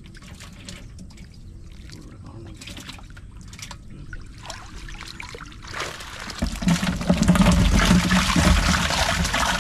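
Water splashing and draining as a bamboo fish trap is lifted from a field channel, then pouring loudly into a plastic container as the trap is emptied, from about six seconds in.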